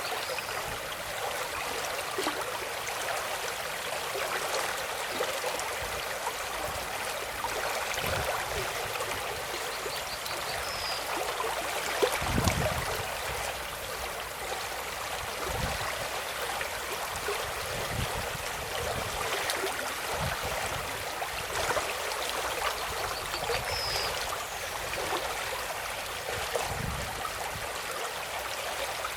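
Running water, a stream splashing and babbling steadily, with a few soft low thumps, the strongest about twelve seconds in.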